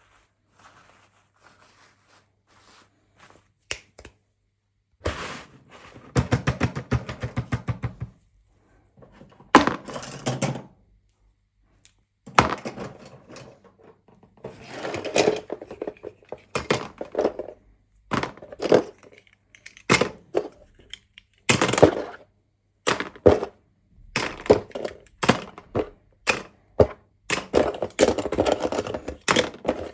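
Small plastic toys and packaging being handled: a string of irregular knocks, taps and clicks, with fast rattling runs now and then.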